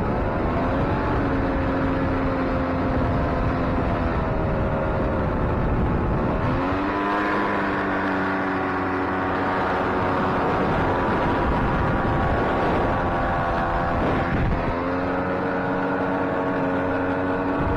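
Jet boat engine running under way. Its pitch climbs about six seconds in as the boat speeds up and drops back about eight seconds later, over the rush of water spraying off the hull.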